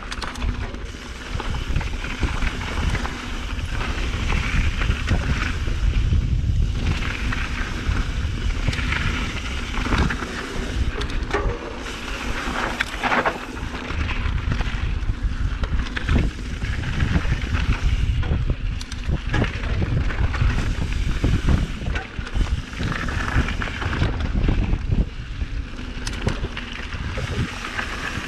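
Wind buffeting the camera microphone on a Trek Remedy 9.8 full-suspension mountain bike riding fast down a rocky dirt trail, a heavy rumble that rises and falls with speed. Tyres roll over dirt and stones, with frequent sharp knocks and rattles from the bike.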